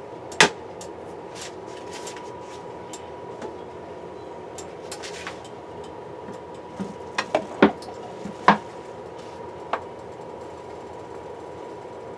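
Steady mechanical hum while oil heats in a frying pan, broken by a few sharp clicks and knocks: one about half a second in and a quick cluster of them past the middle.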